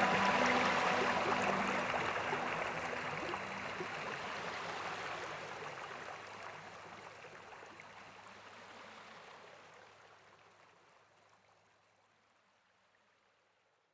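Flowing stream water, with soft sustained music tones dying away in the first few seconds; the water sound fades out steadily to silence about eleven seconds in.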